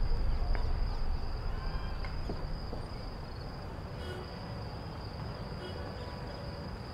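Crickets trilling steadily in one unbroken high-pitched tone, over a low background rumble that fades away in the first few seconds.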